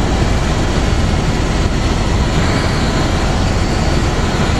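Helicopter in flight, heard from on board: loud, steady rotor and engine noise with a rapid low beating.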